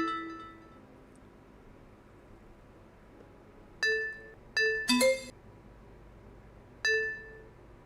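Bell-like electronic chime alerts from an earthquake-sensor monitoring web page, each a single ding that fades quickly, sounding as sensors trigger. About five dings come at irregular gaps, with two differently pitched dings almost together near the middle.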